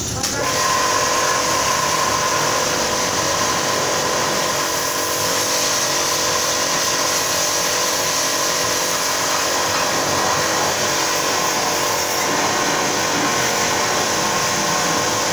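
Small portable electric pressure washer's plunger pump running steadily, a constant motor hum under the hiss of its high-pressure water jet. It comes up to full level about half a second in.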